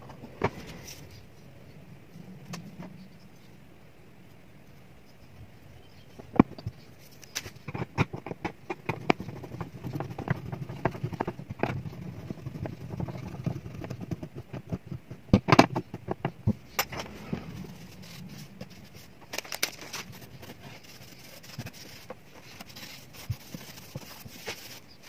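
Irregular clicks and light knocks of hand work on a nylon-string guitar's wooden top as a new bridge is set into fresh glue and a screwdriver is worked at it, busiest in the middle, then faint rubbing near the end as the excess glue is wiped away.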